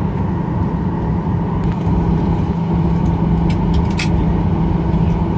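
Cabin noise inside a Boeing 737 rolling along the runway after landing: a steady drone of the engines and airflow with a low hum. A few short clicks are heard about three and a half to four seconds in.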